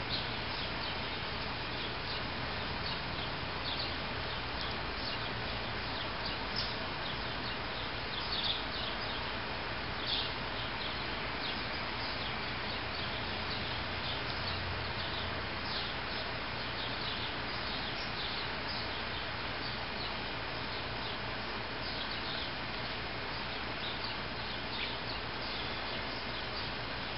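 Outdoor background: a steady hiss with many short, high bird chirps scattered through it.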